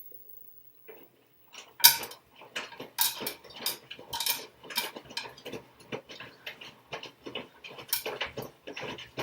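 Washing machine in its first rinse: a run of irregular clattering knocks and clicks, several a second, starting about two seconds in, over a faint low hum.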